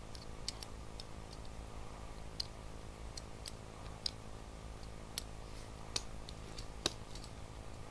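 Faint, irregular small clicks and ticks, about one a second, from hands handling a miniature cake model and craft tools on a plastic tablecloth, over a low steady hum.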